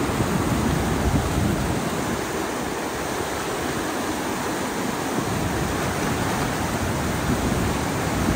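Fast-flowing river rushing over rocks and through white-water rapids: a steady, even rushing noise.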